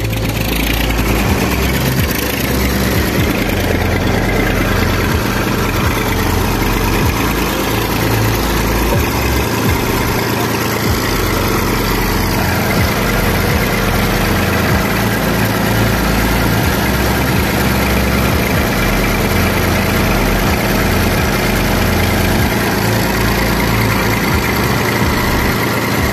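Old Massey Ferguson tractor's diesel engine idling steadily with its rocker cover off and the valve gear exposed, just after being reassembled.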